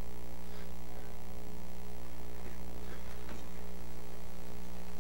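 Steady electrical mains hum: a low, even buzz with a stack of higher overtones that holds unchanged throughout.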